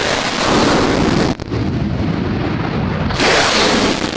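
Loud rushing jet-engine noise from a formation of fighter jets flying low past. The noise drops out for a moment about a second and a half in, and comes back brighter and hissier at about three seconds.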